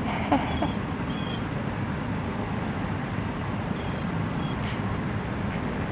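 Steady low rumble of a car heard from inside the cabin, with a short sharp noise about a third of a second in and a few brief high chirps.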